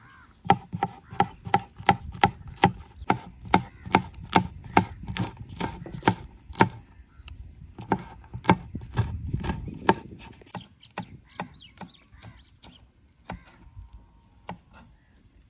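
Rapid, even striking in food preparation, about four blows a second for some six seconds, each with a short ring, then a few scattered knocks.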